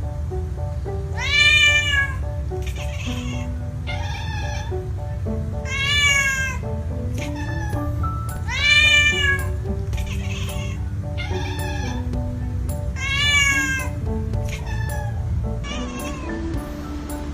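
Music with a cat meowing over it again and again: long meows that rise and fall come about every four seconds, with shorter ones between them, over held notes and a steady low beat.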